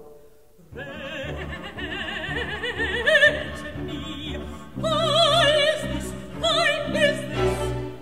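Operatic singing: a high voice with wide vibrato over an orchestra, coming in about a second in and holding long notes.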